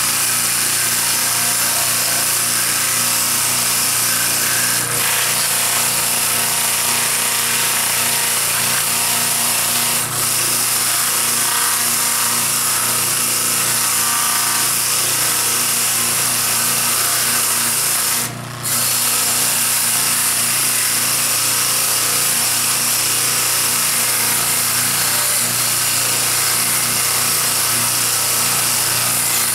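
Bench-mounted flap sanding mop with sandpaper fingers, spun by an electric motor, sanding a carved wooden hat: a steady motor hum under the hiss of sandpaper on wood. The sound drops out briefly about two-thirds of the way through.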